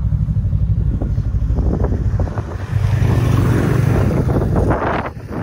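Snowmobile engine running while riding, a steady low drone that gets louder about halfway through, with wind rushing over the microphone.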